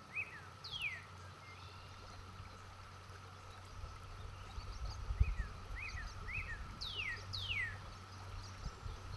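Outdoor nature ambience: birds calling in short chirps and several quick falling whistles, over a steady low rumble of running water that surges about halfway through.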